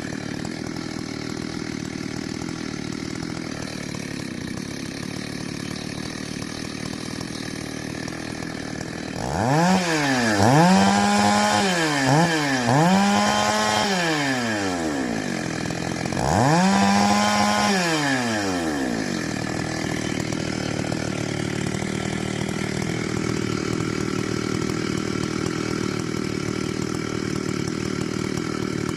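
Ported Stihl MS880 two-stroke chainsaw with a custom dual-port muffler idling, then revved up to high speed three times in a row about a third of the way in, each rev held a second or two before dropping back, then idling again.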